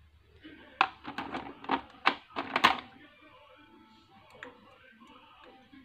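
A quick run of clinks and knocks over about two seconds: glass jars and their lids being handled on a kitchen counter. One faint tick follows later.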